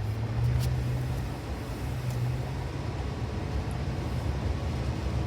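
A car driving along, with a steady low rumble of engine and road noise. There is one short click about half a second in.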